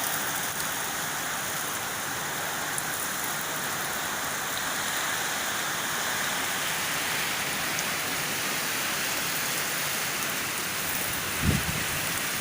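Heavy rain falling steadily in a thunderstorm, with one brief low thump about eleven seconds in.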